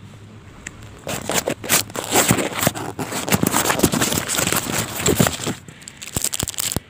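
Plastic wrappers of individually wrapped Dark Fantasy Choco Fills biscuits crinkling and crackling as they are handled and pulled out of their cardboard box. It starts about a second in and stops abruptly near the end.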